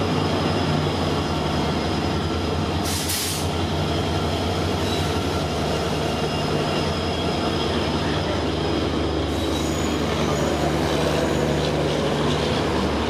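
Diesel locomotive hauling a passenger express running through a station at speed, its engine giving a steady low hum as it passes close, then the coaches rolling past with wheel and rail noise and some wheel squeal. A brief hiss about three seconds in.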